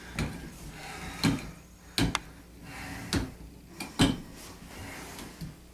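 Sharp clicks and knocks as the cap on a faucet handle is worked at and pried to get it off, about five separate knocks a second or so apart.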